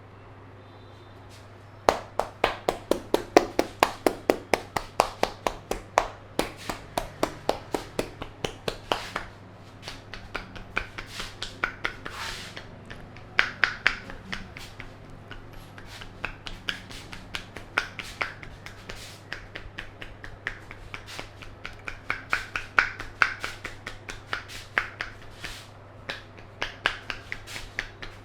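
Hands slapping and tapping rapidly on a head during a head massage, starting about two seconds in at about five strikes a second. The strikes continue in runs with short pauses and changes of pace.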